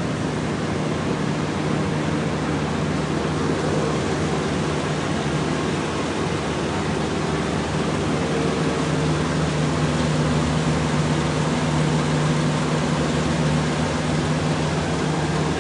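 Steady industrial background hum and rushing noise, with a low droning tone throughout and a fainter higher tone that comes and goes.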